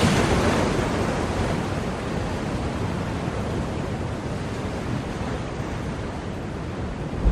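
Ocean waves breaking on a shore: a wave crashes right at the start and its surf washes out in a long, gradually fading hiss, then the next wave swells near the end.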